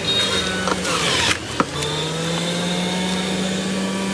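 Electric blender motor running as it blends a fruit and milk smoothie. Its pitch drops sharply a little over a second in as it bogs under the load, with a brief loud rush and a click, then climbs back up and holds steady.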